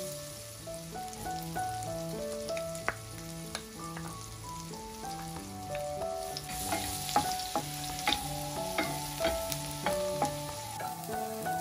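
Butter sizzling and foaming in a nonstick frying pan, with a wooden spoon clicking and scraping against the pan. The sizzle grows brighter about halfway through as minced garlic goes into the hot butter. Soft background music plays underneath.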